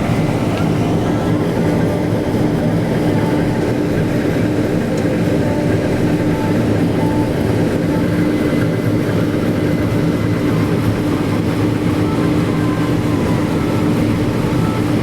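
Tractor-drawn bean-harvesting machinery running steadily under load, a constant loud drone with a fixed hum.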